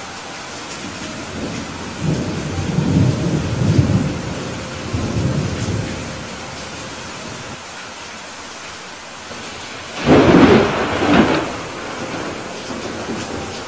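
Steady rain with rolling thunder: a low rumble about two seconds in that rolls on for some four seconds, then a louder, sharper peal about ten seconds in.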